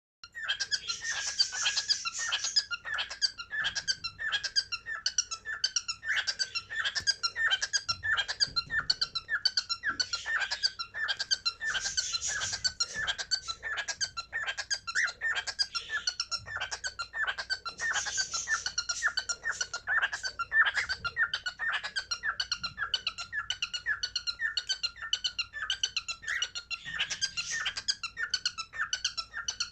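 Cockatiel calling, a rapid run of short chirps, about three a second, that goes on without a break.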